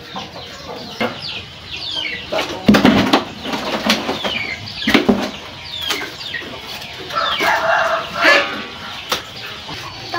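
Chickens clucking over and over in short falling calls, with a few knocks and rustles of whole fish being lifted from a woven basket and dropped into a styrofoam box.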